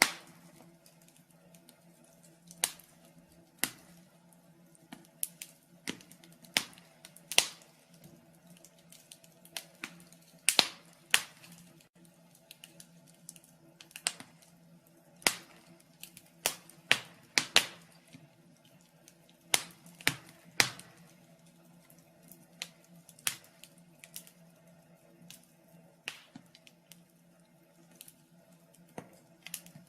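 Wood fire in a fireplace crackling: irregular sharp pops and snaps, roughly one a second and sometimes several in quick succession, over a faint steady low hum.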